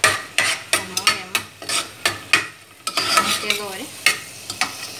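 A metal spoon scraping and knocking around a metal pot, stirring chopped onion, tomato and chile frying in oil, in quick repeated strokes over a steady sizzle.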